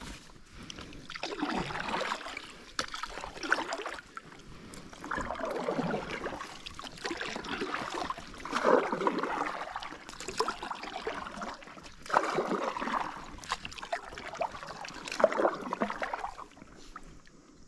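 Kayak paddle strokes in river water: a swishing splash that swells and fades about every three to four seconds, with running water between strokes.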